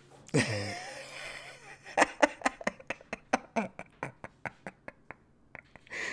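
A man's voice gives a short falling vocal sound, then breaks into a run of short, breathy laugh pulses, about four a second, that grow fainter.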